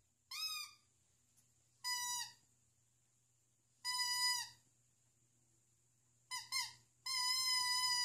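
Dog whining: a series of high-pitched whines, short ones spaced a couple of seconds apart, then a quick pair and a longer held whine near the end.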